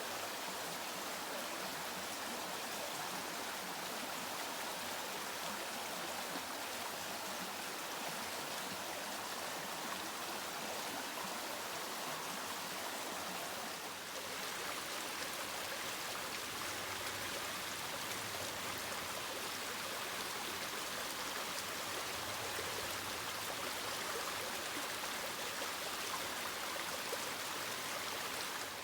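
Mountain stream rushing and splashing over rocks, a steady full flow swollen by days of heavy rain, with a slight shift in the sound about halfway through.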